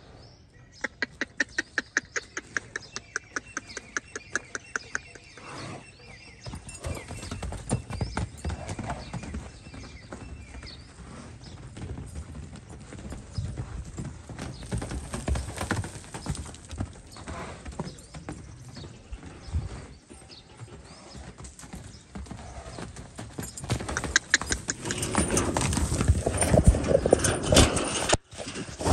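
Horse galloping on loose dirt, its hoofbeats thudding irregularly and growing louder near the end. In the first few seconds there is a high call that pulses rapidly, about four times a second.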